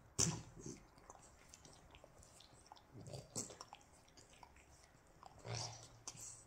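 French bulldog's wet mouth sounds, smacking and clicking as it licks and mouths a hand held to its muzzle, coming in short bursts a second or two apart.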